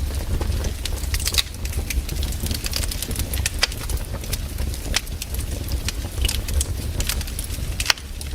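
Wood campfire burning: sharp crackles and pops at irregular intervals over a steady low rumble, with a few louder snaps scattered through.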